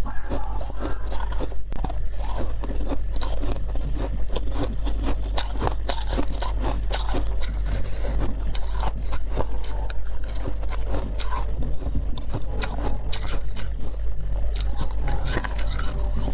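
A spoon scraping humidifier frost, and the frost crunched and chewed in many quick, irregular crunches, over a steady low hum.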